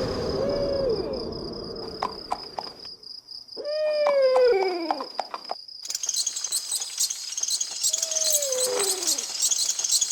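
Owl hoots, about three, each falling in pitch, over a steady high insect chirring that turns into dense, rapid cricket-like chirps about six seconds in.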